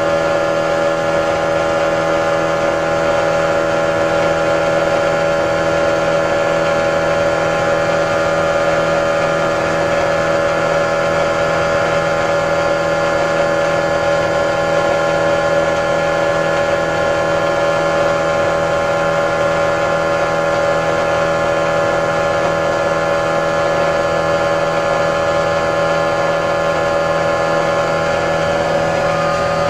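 The WITTS generator, a rotating electric generator machine, running steadily under a load of light bulbs: a constant hum and whine made of many steady tones.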